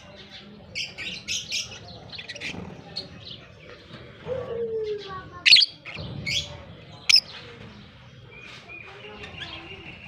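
Lovebirds chirping: many short, high calls throughout, with two sharp, loud shrieks about halfway through and again a second and a half later.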